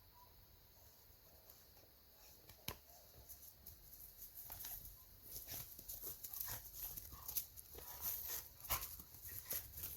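A dog close by, faintly whimpering and moving about. A sharp click comes a little under 3 s in, and the short clicks and rustles grow busier through the second half.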